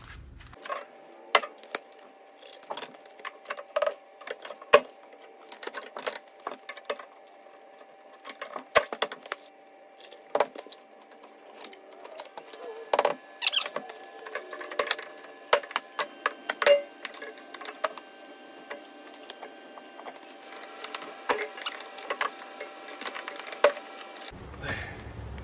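Irregular metallic clanks, taps and scrapes from a steel pry bar levering on a car's rear suspension to work an old coil spring out of its seat, with a few louder knocks.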